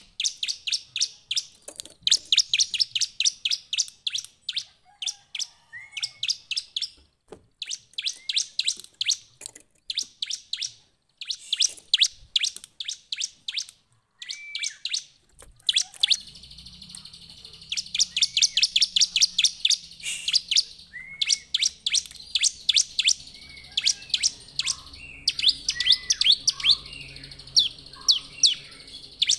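Bar-winged prinia (ciblek) singing: fast runs of sharp, high chirps in bursts of a second or two, with short gaps and a few short rising notes between them. About halfway in, a faint low hum sets in underneath.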